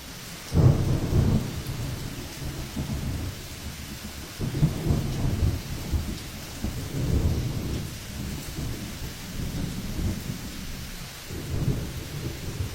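Hurricane wind gusting in irregular surges that buffet the microphone with a low rumble, over steady rain. The strongest gust comes about half a second in, with more every few seconds after.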